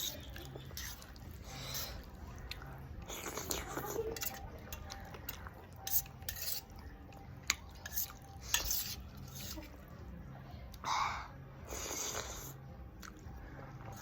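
Eating sounds: a utensil clicking and scraping against a dish, with a few sharp clinks about six to nine seconds in, and some louder noisy mouth sounds in between.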